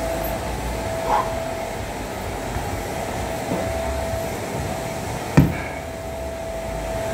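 Steady hum of gym ventilation with a constant tone, broken by a single sharp knock about five seconds in and a softer one near the start.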